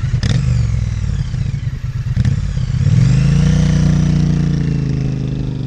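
Motorcycle engine revving. It runs unevenly at first, rises in pitch about two and a half seconds in, holds there, then slowly eases off and fades near the end.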